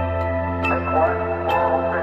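Background music: a soft ambient track with a sustained bass note under chiming, evenly spaced notes.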